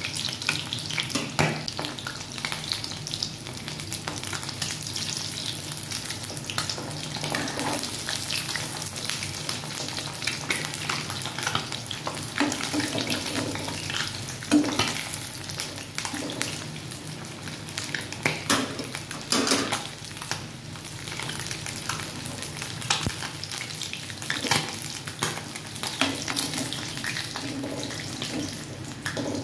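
Boiled eggs deep-frying in hot oil in a metal kadhai: a steady crackling sizzle. A steel ladle knocks and scrapes against the pan now and then as the eggs are turned and lifted out.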